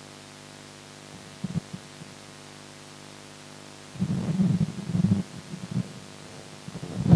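Handheld microphone on a PA system being handled and passed over, giving low rumbling thumps about a second and a half in, a longer cluster from about four to five seconds in, and a loud thump at the end, over a steady electrical hum.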